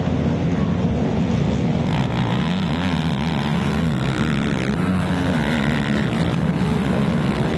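A pack of racing ATVs' engines running and revving together, several engine pitches rising and falling over one another.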